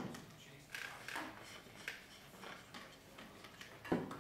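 Clear plastic canisters of a BRS dual media reactor being unscrewed and set down on a stone countertop. There is a hard knock at the start, light plastic clicks as a canister is twisted off, and another knock just before the end as the second canister lands on the counter.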